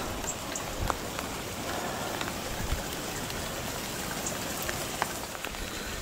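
Steady hiss of rain and wind on a stormy day, with a few faint light ticks.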